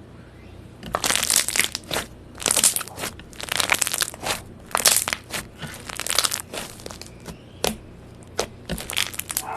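Slime being squeezed and pressed by hand, giving irregular bursts of crackling and crunching that start about a second in.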